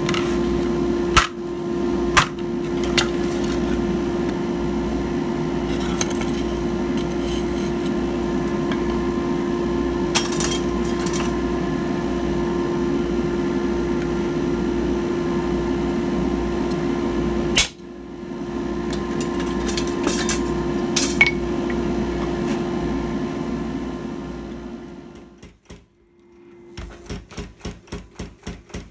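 Hammer blows on a handheld punch stamping texture into a red-hot steel tray on an anvil: a handful of separate sharp metallic strikes, each well apart, over a steady droning hum. The hum fades out near the end, and a rapid, even tapping begins in the last two seconds.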